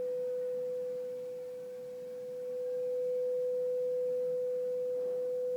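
A single steady pure sine tone synthesized by the Minim library in Processing, with its pitch and volume set by Arduino potentiometers. The pitch holds level while the volume dips slightly about two seconds in and comes back up.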